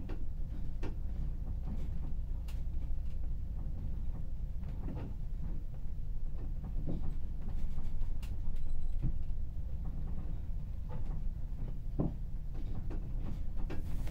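Steady low drone of the ferry's engines and hull heard inside a cabin, with scattered faint creaks and ticks from the cabin fittings as the ship moves.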